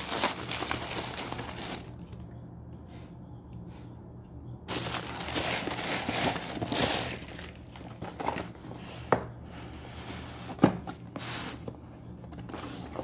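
Plastic courier mailer bag crinkling and tearing as it is pulled open by hand. The rustling comes in bursts, with a lull about two seconds in, then a few sharp crackles towards the end as the cardboard box inside is handled.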